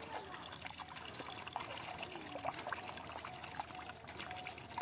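Faint trickle of water pouring from a cut plastic-bottle fish trap into a polythene bag, with small ticks and patters as it lands in the bag.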